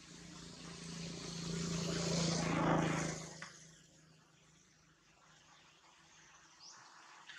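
A motor vehicle passing by, its engine hum swelling to a peak about two and a half seconds in, then fading away within a second or so.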